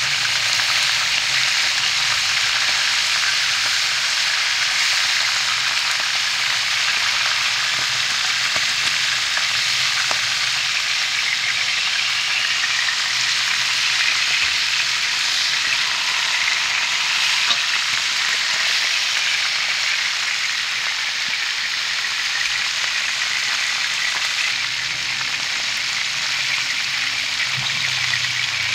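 Mullet frying in hot oil in a pan, giving a steady sizzle.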